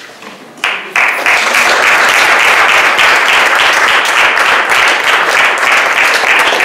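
Audience applauding: a crowd's clapping starts about half a second in, swells to full strength a second in and holds steady.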